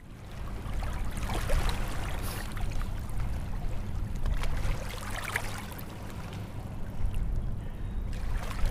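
Water running and trickling, over a low steady hum.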